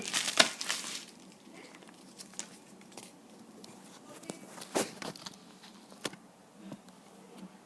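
Packaging being handled: rustling and crinkling in the first second, then a few scattered clicks and taps as the box and its contents are moved.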